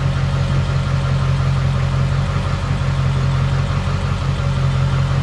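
A pickup truck's engine idling steadily, with an even low hum.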